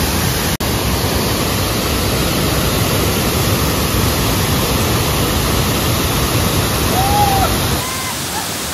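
Water pouring over a broad, curved dam spillway wall and crashing into the pool below: a loud, steady rush of falling water. The sound drops out for an instant about half a second in.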